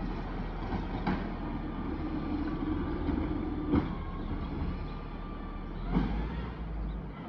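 Garbage truck at work: its engine running steadily, a hydraulic whine held for about two and a half seconds, and three sharp bangs, about a second in, near four seconds and near six seconds.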